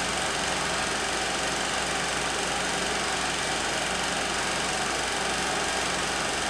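16 mm film projector running: a steady mechanical whir that holds an even level throughout.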